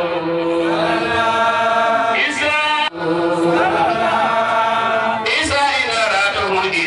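An Islamic devotional chant sung by a group of voices, long notes held and sliding slowly from one to the next, with a brief break just before three seconds in.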